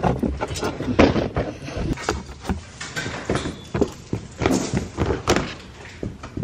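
Rummaging through stored Christmas things: a run of irregular knocks, thumps and clatter as storage containers and other items are shifted about.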